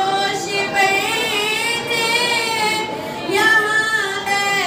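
A woman singing a naat, an Islamic devotional song in praise of the Prophet, solo into a microphone. She holds long notes whose pitch wavers and bends, with no instruments.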